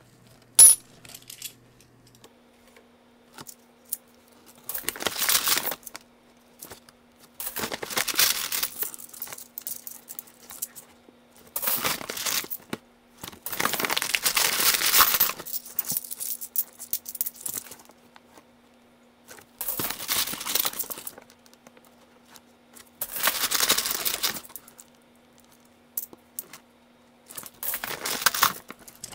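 A plastic bank coin bag of half dollars crinkling and rustling in repeated bursts as gloved hands dig into it and move the coins around. There is a sharp click about half a second in.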